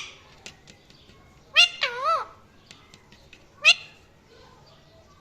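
Parrot calling: a wavering, whining call about a second and a half in, then a short sharp call near four seconds.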